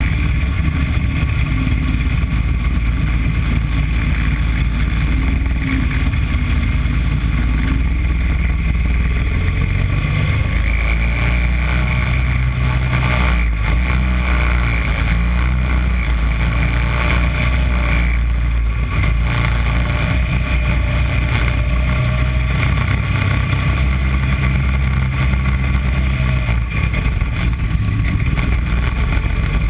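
Onboard sound of a mini Corvette race car's small engine running continuously as it drives the course, its pitch shifting up and down a few times.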